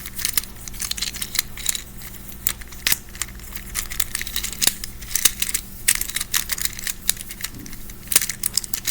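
Infinity cube fidget toy being handled: rapid, irregular small plastic clicks with some crinkling.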